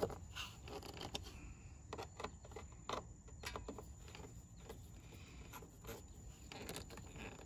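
Faint, irregular clicks and scrapes of a T20 Torx screwdriver turning a screw into a mass airflow sensor's plastic housing, snugging it down.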